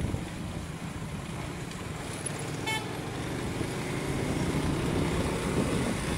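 Engine and road noise of a moving vehicle, steady and low. A vehicle horn gives one short toot about two and a half seconds in.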